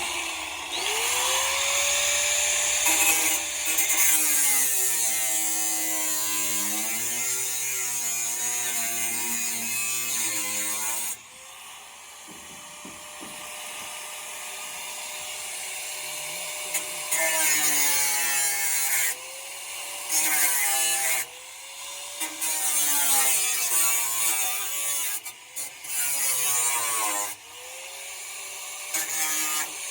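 Electric power tool with a spinning bit cutting into a truck's metal door lock, its motor pitch sagging and recovering as it bites under load. It runs for about ten seconds, stops, then comes back in several shorter bursts.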